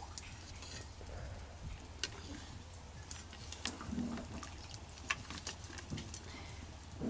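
Steel ladle stirring thin, watery kolai dal in a metal pan: faint liquid swishing with scattered light clicks of the ladle against the pan.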